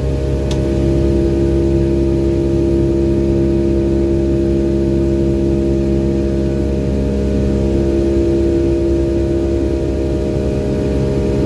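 Steady drone of a Boeing 757's Rolls-Royce RB211 turbofan engines heard inside the cabin, a constant hum of several steady low tones at unchanging power. There is one small click about half a second in.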